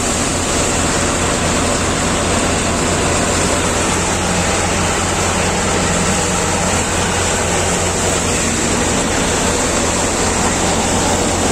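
John Deere 5305 tractor's diesel engine running steadily at working speed, together with the noise of the machinery it drives. The loud, unchanging drone holds a constant pitch throughout.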